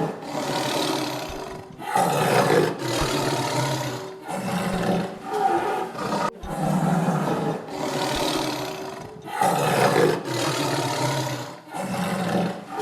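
Big cat roaring repeatedly: a string of about ten loud, rough roars, each a second or so long, with short breaks between them.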